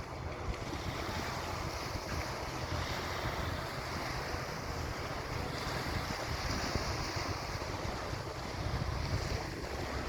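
Wind buffeting the microphone over rushing sea water and the low, steady rumble of a car ferry under way.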